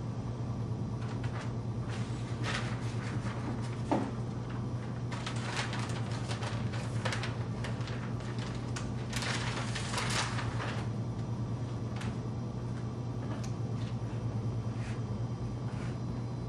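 Plastic laminating film rustling and crinkling in irregular bursts as it is handled and threaded under a roll laminator's idler bars, with one sharp knock about 4 seconds in, over a steady low hum.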